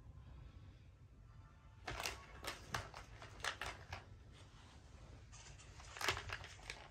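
Lime-green plastic ball-track cat toy clicking and rattling as a cat paws and bites at it: quick clusters of sharp plastic clicks between about two and four seconds in, and another, the loudest, about six seconds in.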